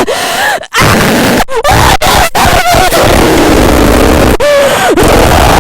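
A person yelling and screaming into an overdriven microphone: a long, loud, distorted vocal outburst whose pitch bends up and down, dropping sharply near the end.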